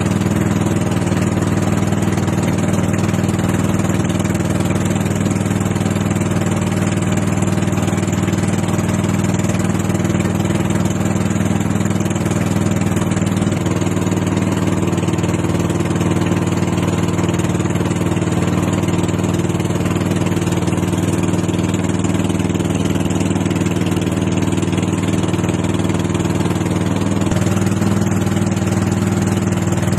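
Small gasoline engine of an outrigger pump boat (bangka) running steadily, its pitch shifting slightly about halfway through and again near the end.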